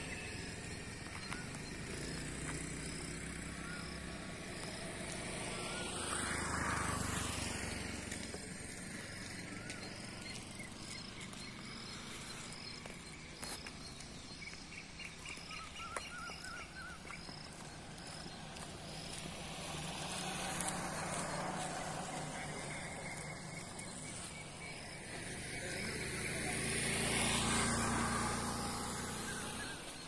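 Open-air ambience of distant road traffic, swelling up and fading twice, loudest about a quarter of the way in and again near the end. Birds call through it, with a quick run of chirps near the middle, and a faint steady high pulsing runs through the first half.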